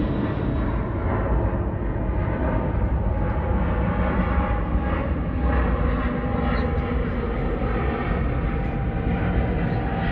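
Jet airliner climbing out after take-off, heard from the ground as a steady, low jet rumble.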